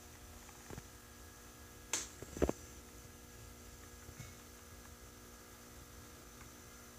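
A few light knocks of clear acrylic enclosures being handled, the loudest pair about two to two and a half seconds in, over a faint steady electrical hum.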